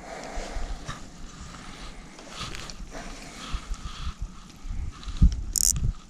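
Handling noises in a fishing boat while tackle is rigged: scattered low knocks and bumps, one louder knock a little after five seconds, and a short hiss near the end.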